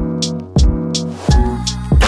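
Background music with a steady beat: a kick drum and high percussion over held chords, and the chords change about a second and a half in.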